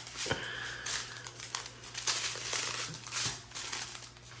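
Strip of small plastic bags of diamond-painting drills crinkling as they are handled, with many small sharp crackles.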